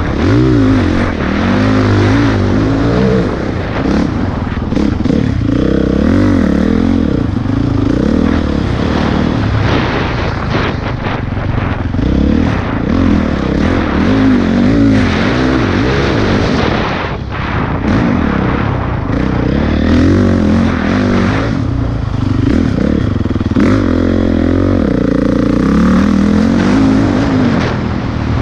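Dirt bike engine revving hard, its pitch rising and falling over and over as the rider accelerates, shifts and backs off around a motocross track.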